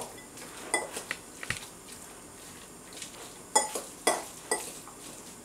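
Metal fork clinking and scraping against a ceramic bowl while mashing tofu: irregular sharp taps, a few in the first second or so and another cluster a little past the middle.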